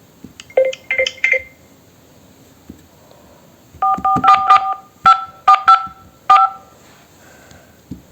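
Phone keypad tones as a number is dialled: short two-tone beeps, a few about a second in, then a quicker run of about nine.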